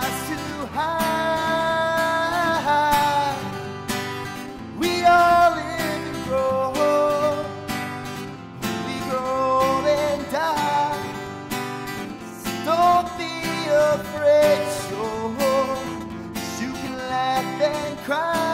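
A man singing an original song in full voice while strumming a Takamine acoustic guitar, with a steady strummed rhythm under a sung melody.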